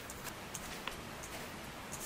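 Hands kneading dough in an enamel bowl: a few faint, scattered taps and soft slaps over a quiet background hiss.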